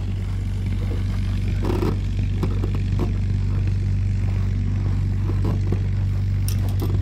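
A steady low mechanical drone that does not change, with scattered light clicks and scrapes from handling the aircraft's aluminium tube frame and wing rigging.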